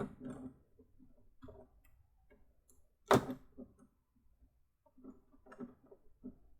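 Plastic LEGO Technic parts being handled: a series of short clicks and knocks, the loudest about three seconds in, with a cluster of quicker clicks near the end.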